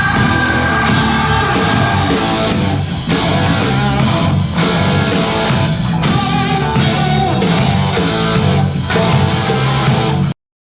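Loud rock music, a full band playing with guitar, that cuts off suddenly near the end.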